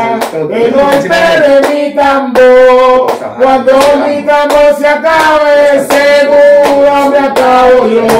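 A voice singing long held, wavering notes over hand drums struck with the hands.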